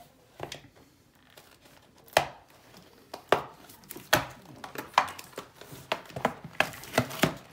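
A trading-card box and its wrapping being torn open by hand: a series of short, sharp rips and taps that come faster near the end.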